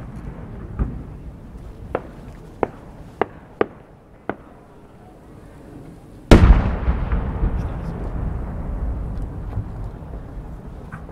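Aerial fireworks: a few short sharp pops, then about six seconds in a large No. 10 (roughly 30 cm) shell bursts with a very loud boom that rumbles and echoes away for several seconds.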